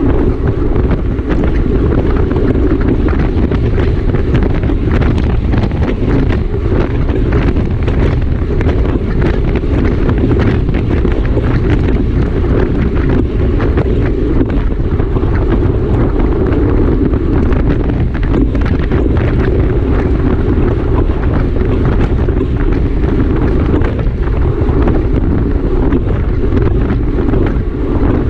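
Loud, steady wind buffeting on the microphone of a camera riding on a racing bicycle at race speed, with frequent small knocks mixed in.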